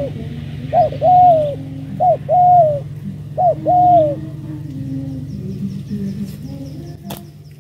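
Spotted dove cooing: four two-part coos, each a short note followed by a longer arched one, then a few softer, lower notes.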